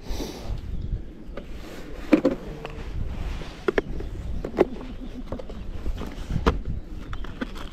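Small clicks and light taps of fishing tackle being handled while a feeder rig is tied, scattered irregularly through the moment over a low background rumble.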